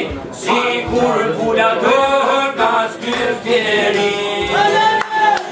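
Men singing an Albanian folk song with held, chant-like notes, accompanied by plucked long-necked lutes.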